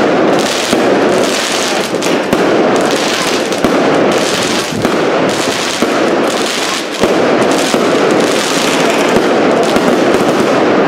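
Aerial fireworks bursting overhead in quick succession: a dense, continuous crackling with sharper bangs here and there.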